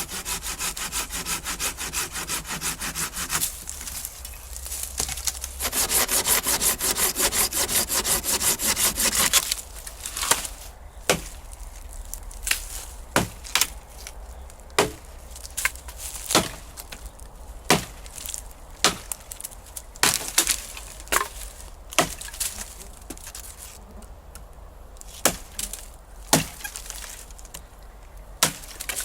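Dry wood rasping and cracking: a dense run of fast rasping strokes for about the first nine seconds, then sharp single cracks about once a second.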